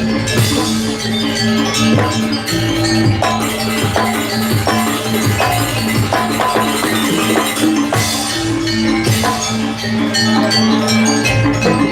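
Live Janger ensemble music: gamelan-style metallic percussion struck in a steady rhythm over sustained low ringing tones.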